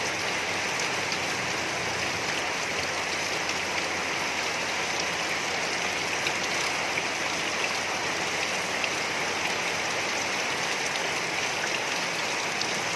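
Rain falling steadily: an even hiss of drops, with a few sharper drip ticks here and there.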